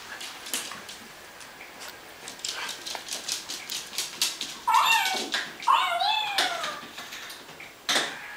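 Shih Tzu puppy giving two high whining yelps about halfway through, the second longer and falling in pitch, among scattered clicks of claws on a hard floor, with a sharp knock near the end.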